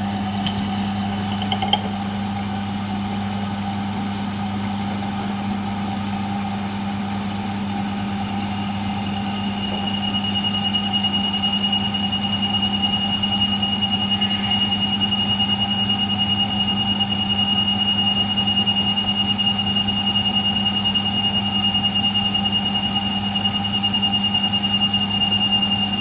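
Milling machine spindle running steadily with a low hum. About ten seconds in, the drill bit bites into the alloy plate and a steady high-pitched squeal from the cutting joins the hum and holds.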